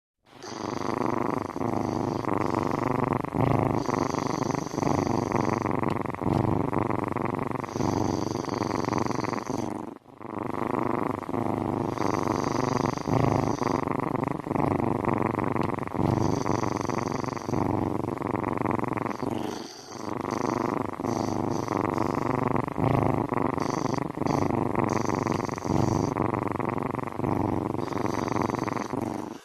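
Steady, continuous purring, as of a cat, with a high whistle-like tone that comes and goes. It breaks off briefly about ten and about twenty seconds in.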